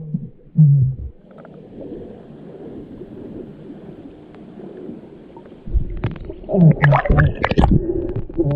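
Creek water heard through a submerged camera: a faint steady hiss of the current, then, about six seconds in, loud muffled low rumbles and gurgles with a few clicks.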